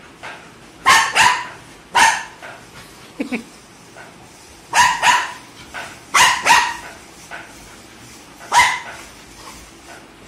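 Dog barking during rough play-wrestling: sharp, loud barks, several in quick pairs, about eight in all.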